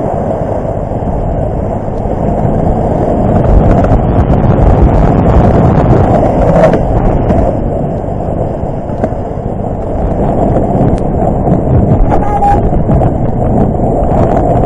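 Plastic sled towed over snow-covered lake ice, a steady loud scraping rumble heard close up from the sled rider, mixed with the Beta Xtrainer 300 two-stroke dirt bike pulling ahead.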